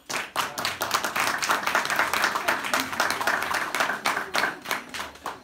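Audience applauding: a dense patter of many hands clapping that starts at once, then thins out and fades near the end.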